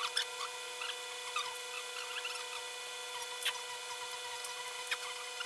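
Paper banknotes rustling, with small scattered clicks, as they are handled and counted, over a steady hum.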